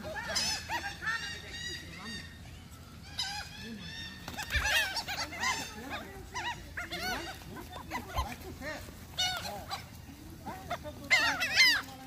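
A flock of laughing gulls calling over one another in bursts of short arched cries as they squabble over food, the loudest cluster of calls near the end.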